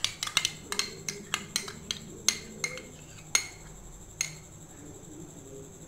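Glass bowl of curd clinking as it is tapped and scraped out over a steel mixing bowl: a quick run of sharp clinks, several a second for about two seconds, then a few spaced-out ones, the last about four seconds in.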